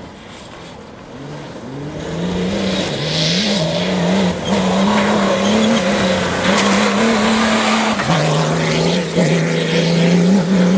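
Mini All4 Racing rally-raid car coming up fast on a dirt track and passing by. Its engine grows loud as it nears, and the note steps up and down through gear changes, dropping about eight seconds in.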